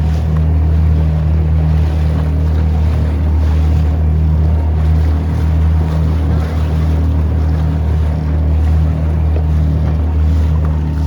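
Motorboat engine running at a steady speed with a constant low drone, over rushing water and wind on the microphone.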